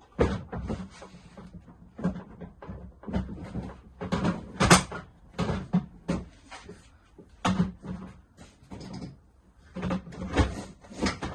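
Clip-together modular stacking toolbox being handled: a run of irregular knocks, clunks and clicks as a box is unclipped and its lid and latches are worked, with the loudest knocks about four and a half seconds in and near the end.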